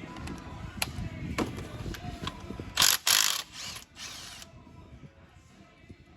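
Ratchet wrench being worked on engine fasteners: a few separate clicks, then two loud rapid runs of ratcheting about three seconds in.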